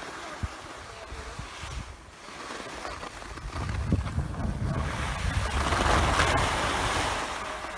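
Skis hissing and scraping over groomed snow, mixed with wind rumbling on the microphone. The noise builds from about three and a half seconds in, is loudest around six seconds, then eases off.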